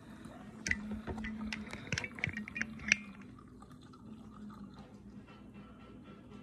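Kombucha dripping and trickling through a cheesecloth strainer into a pitcher. A run of sharp clicks and taps comes in the first three seconds, the loudest near three seconds in, then it settles to a quieter trickle.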